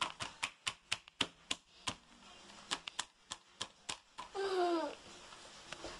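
Spoon clicking against a plastic bowl, about four sharp clicks a second with a short pause in the middle, then a toddler's brief vocal sound falling in pitch just after four seconds in.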